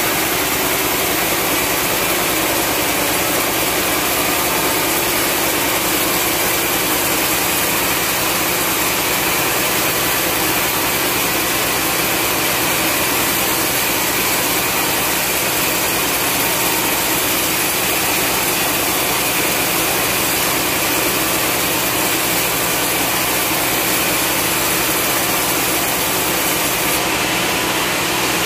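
Large band sawmill ripping lengthwise through a long log of dry hardwood: a loud, steady sawing noise from the blade and its drive, unbroken throughout.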